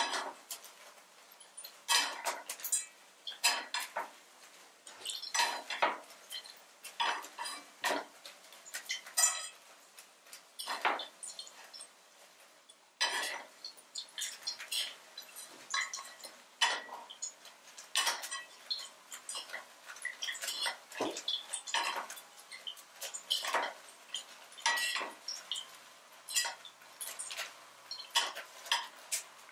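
Repeated clinks of a small metal utensil against clay pots and dishes, irregular, about one or two a second, some with a brief ring.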